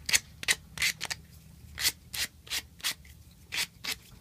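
Plumber's sandpaper rubbed by hand on a small piece of PVC pipe: short, uneven scratchy strokes, about two a second. The plastic is being roughened so the PVC cement will grip.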